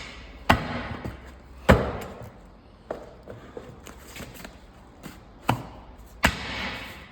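A series of heavy knocks at irregular intervals, the loudest about half a second, a second and three-quarters, and six and a quarter seconds in, each with a short ringing tail, with lighter taps in between.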